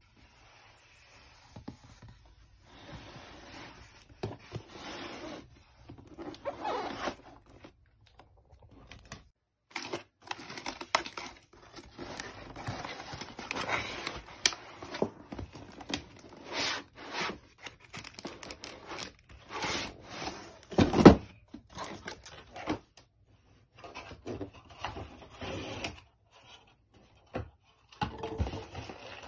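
A cardboard laptop box being opened and unpacked by hand: irregular rustling and scraping of cardboard flaps and foam packing inserts sliding out, with one sharp loud knock about two thirds of the way through.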